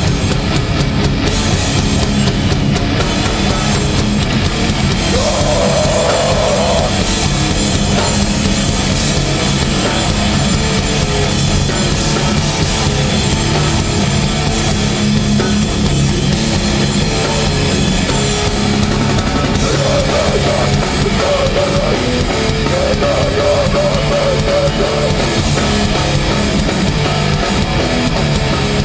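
Hardcore band playing live and loud, with a driving drum kit and guitars.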